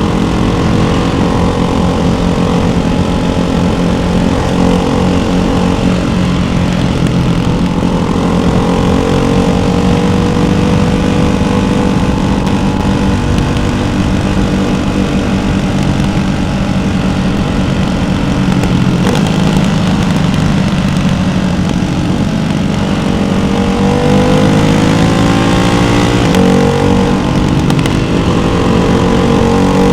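Ducati Hypermotard 698's single-cylinder engine through a baffled Termignoni exhaust while riding, the note rising and falling with the throttle. Near the end it climbs in pitch, breaks briefly, then climbs again.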